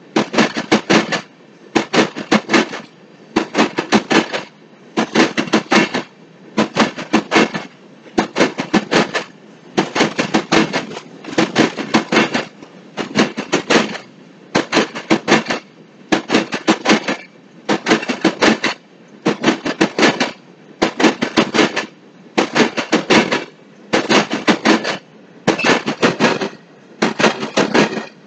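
Steel wheels of an empty freight train's hopper cars clacking over a rail joint as the cars roll past: a quick group of sharp clacks about every second and a half, one group as each pair of car trucks crosses, with a low rolling rumble between.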